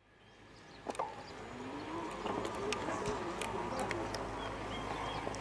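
Outdoor ambience fading in: a steady low hum with a few sharp clicks and faint bird chirps.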